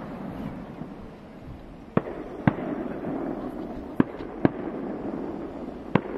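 Aerial firework shells bursting at a distance: sharp bangs in pairs about half a second apart, roughly every two seconds, over a continuous rumble from the display.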